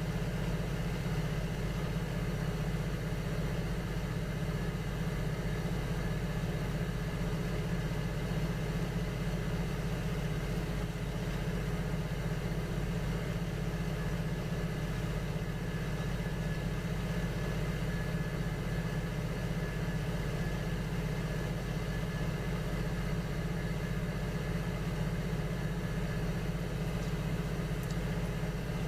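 Electric potter's wheel motor running steadily, a constant low hum with a faint whine over it.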